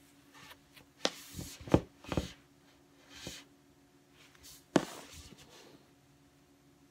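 Hands crumpling and twisting a crinkled obiage (kimono sash scarf) into a flower: short spells of fabric rustling and a few soft knocks of hands against a wooden table. The loudest knocks come at about a second and three quarters and just under five seconds in.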